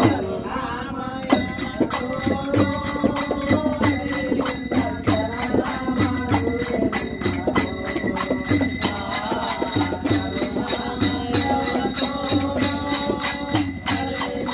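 Men singing a Kannada devotional bhajan together, with small hand cymbals and a drum keeping a steady beat.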